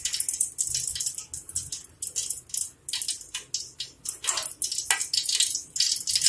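Ghee melting in hot cooking oil in an aluminium pot, crackling and spitting with many small irregular pops.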